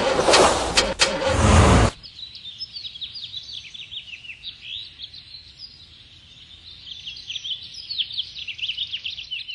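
A loud rushing noise for about the first two seconds, cutting off suddenly, then many small birds chirping rapidly and continuously.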